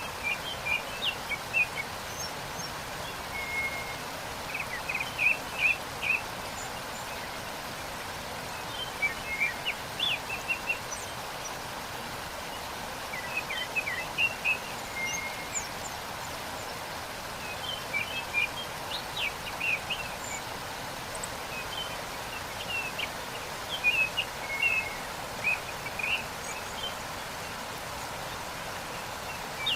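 Steady rush of falling water from a waterfall, with songbirds singing short clusters of chirps every few seconds over it.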